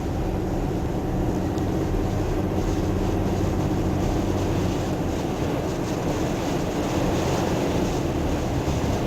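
Steady drone of a pickup truck's engine and tyres heard from inside the cab while driving on snowy roads, with the wind howling outside.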